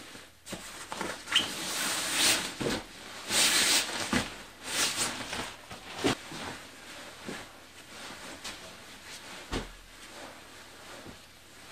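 Fabric rustling and swishing of a Snugpak Softie sleeping bag as it is pulled from its stuff sack and spread out, loudest in the first five seconds, then softer brushing with a few sharp ticks.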